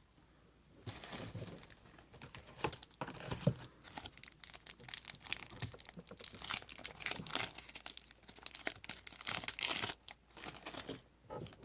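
Plastic wrapper of a trading-card pack crinkling as it is torn open and handled: a dense run of quick crackles that dies away about ten seconds in.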